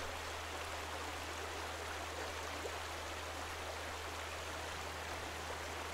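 Steady, even rushing of running water, with a low steady hum beneath it.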